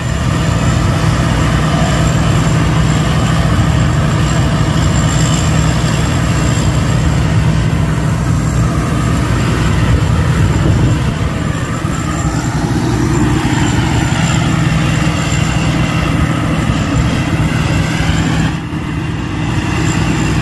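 P. Charoen Phatthana rice combine harvester's engine running steadily under load as it cuts lodged rice, with a brief dip in level near the end.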